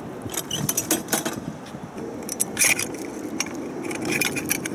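Metal clinking and scraping of steel training-wheel brackets being handled and fitted to the side of an electric unicycle: a run of sharp clicks, the loudest about two and a half seconds in.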